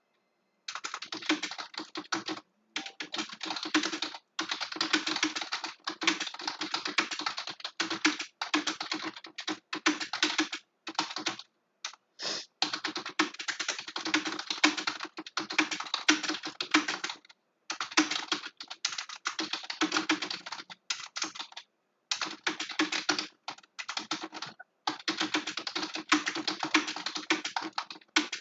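Fast typing on a computer keyboard: rapid runs of keystrokes broken by short pauses every few seconds.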